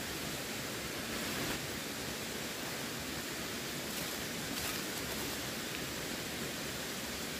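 Running water, a steady even rush with no break.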